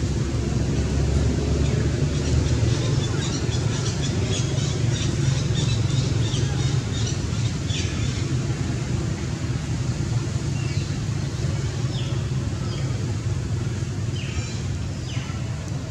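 Steady low rumble of wind on the microphone, with scattered high chirps and a few short falling calls from small birds.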